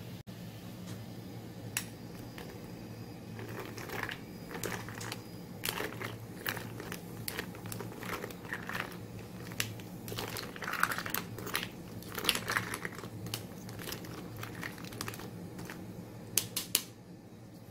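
Spoon stirring ice cubes in a glass of lemonade: irregular clinks and rattles of ice and metal against the glass, busiest in the middle, over a steady low hum.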